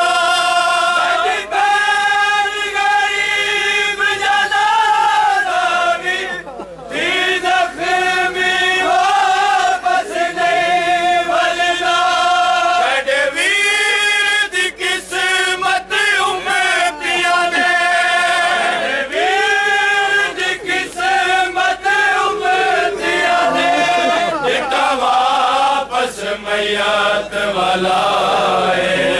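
A group of men chanting a Shia mourning lament (noha) together in long, held, repeating phrases. There is a short break about six and a half seconds in.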